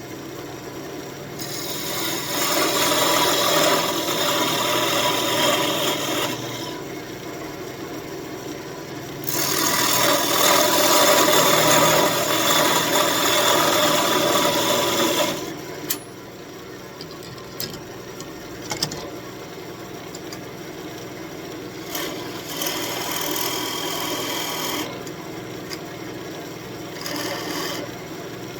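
Parting tool cutting into a spinning elm spoon blank on a wood lathe to form a shoulder: a rough scraping that comes in several long stretches, the longest about six seconds, with the lathe motor humming steadily between cuts.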